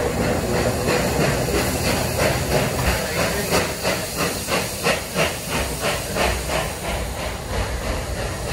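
Steam locomotive 3801, a NSW C38 class Pacific, working under steam: rhythmic exhaust beats at about three a second over a steady hiss of steam.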